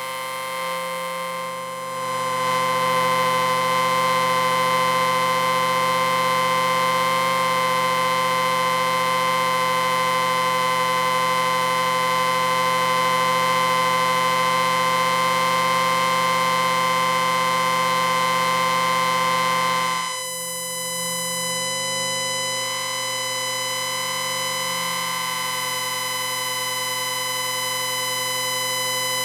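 Electric ringer sounding continuously as a steady, buzzing tone with many overtones. It swells louder about two seconds in, then about two-thirds of the way through it drops a little and changes tone before carrying on.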